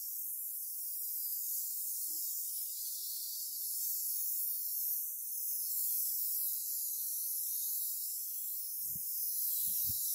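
Compressed-air paint spray gun with a siphon-feed cup, hissing steadily as it sprays a coat of paint.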